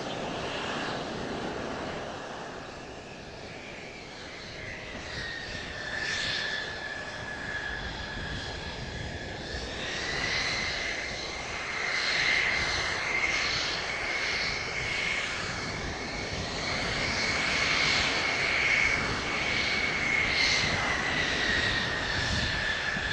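Mitsubishi F-2A fighter's single F110 turbofan running at taxi power: a steady jet whine over a low rumble. The whine rises in pitch about ten seconds in, holds, and drops back near the end.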